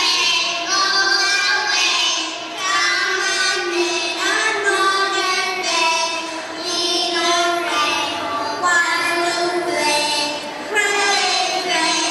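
Young children singing a song together, one continuous melodic line.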